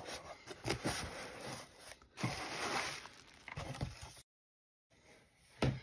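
Cardboard scraping and bubble wrap crinkling as a box is pulled out of a corrugated cardboard shipping carton. The sound drops out to dead silence for about half a second, then there is a short thump near the end.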